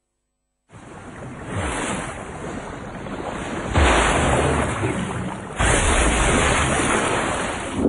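Sea water rushing and surging, starting less than a second in and swelling, with two heavy surges about four and five and a half seconds in as a humpback whale breaches and crashes back into the sea in a great splash.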